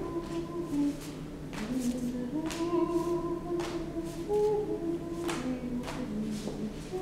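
A single voice humming a slow wordless tune, holding notes that step up and down in pitch, with a few short sharp noises between the notes.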